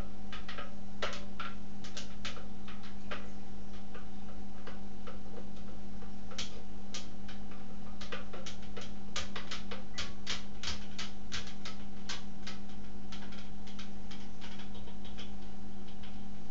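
Long plastic spoon stirring grape wine must in a 5-gallon glass carboy, clicking and knocking irregularly against the bottle's neck, at times several clicks a second, over a steady low hum.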